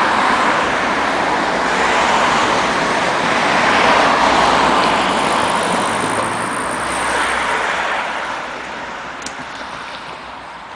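Road traffic noise: a loud rushing hiss of a vehicle going by, swelling about four seconds in and then fading away.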